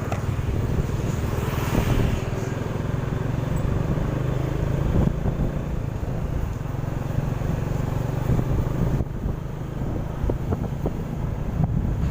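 Outdoor road traffic: a steady low engine hum from vehicles, with one passing more loudly about two seconds in.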